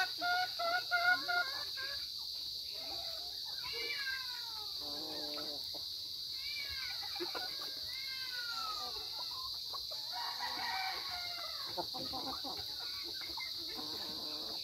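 Chickens calling. A rooster's crow, the loudest sound, tails off in the first second or so, then come several falling-pitch calls and clucks, over a steady high-pitched hiss.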